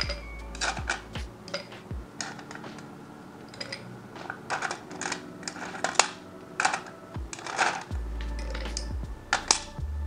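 Ice cubes clinking and knocking as metal tongs pick them from a stainless steel ice bucket and drop them into a tall glass. The clinks come irregularly, some with a brief ring, and the loudest is about six seconds in.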